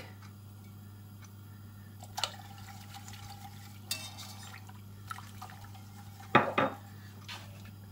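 A wire whisk stirring hot liquid in an enamelled cast-iron pot: soft sloshing with occasional light clinks of the wires against the pot. Near the end comes a brief, louder double clatter.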